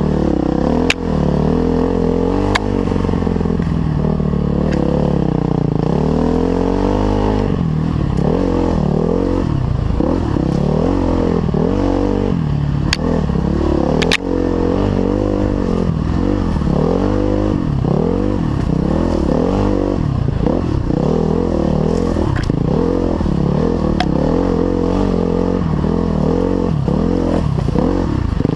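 Dirt bike engine ridden hard off-road, revving up and down all the time as the throttle is worked, its pitch rising and falling every second or so. A few sharp knocks cut through, two near the start and two close together about halfway.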